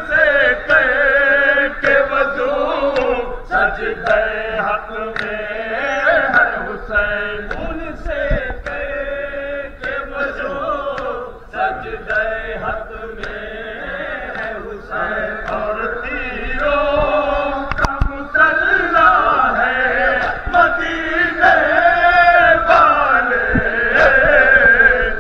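Crowd of men chanting a nauha, a Shia mourning lament, in unison, with many scattered sharp slaps of chest-beating matam.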